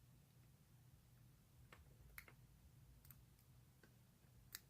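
Faint, sparse clicks of a lock pick and tension wrench working the pins of a Zenith 32 mm brass padlock, about four over the stretch, the sharpest near the end.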